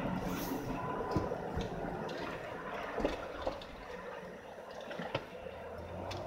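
A car driving slowly on a wet road covered in slush and melting snow, heard from inside the car: a steady wash of tyre and engine noise with scattered small ticks and knocks.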